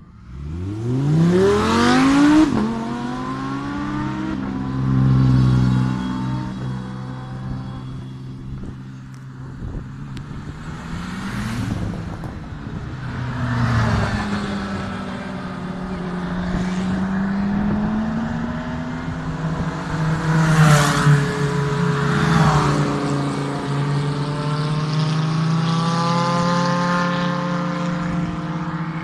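Race car engines running slowly at low revs, with sharp throttle blips that rise and fall quickly: a loud one about a second in and several more later.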